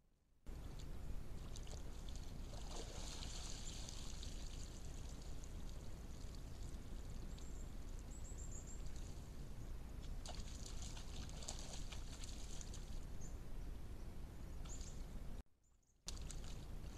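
Sambar deer wading, pawing and splashing in a muddy wallow, water sloshing and dribbling in spells, over the steady hiss and low hum of a trail camera's microphone. The sound cuts out for about half a second near the end.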